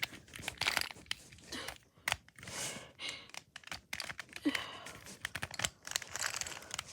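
Irregular quick plastic clicks and rattles of a Rubik's Cube being twisted by hand, with some rustling.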